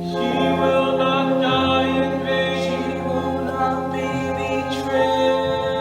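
A cast chorus singing long held chords, with the chord shifting about five seconds in.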